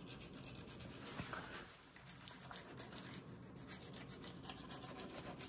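Fillet knife cutting along the backbone of a red snapper: a faint scraping with fine crackling ticks as the blade works against the bones.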